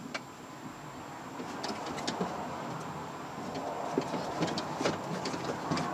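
Scattered light clicks and clinks of small metal parts and tools being handled, over a steady background rumble that grows a little louder about a second and a half in.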